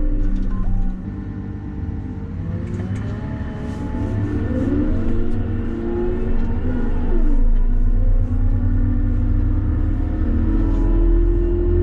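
Cat 930 wheel loader's diesel engine running while the machine is driven along the road. Its sound drops back about a second in, then builds steadily louder and rises in pitch as the loader speeds up.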